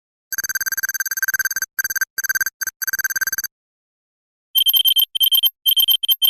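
Digital electronic beeping: a rapid run of one-pitched beeps in several bursts that stops about three and a half seconds in, then after a second's pause a higher-pitched, fast alarm-style beeping starts.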